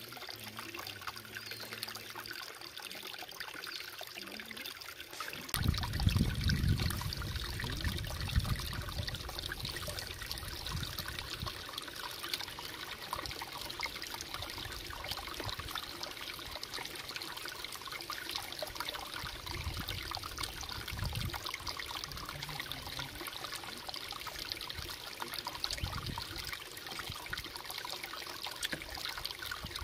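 Water trickling and splashing steadily, with irregular low rumbles joining in about five seconds in.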